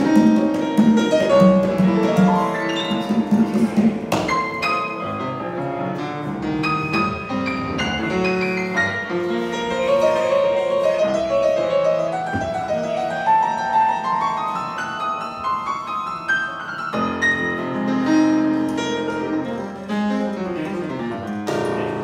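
A grand piano is played: quick runs and chords, with a long rising run in the middle.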